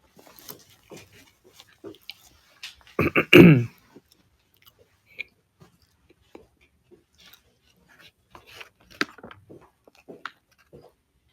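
A man clears his throat with a short, harsh cough about three seconds in, lasting about half a second and falling in pitch. Around it are small scattered clicks and mouth noises close to the microphone, like chewing.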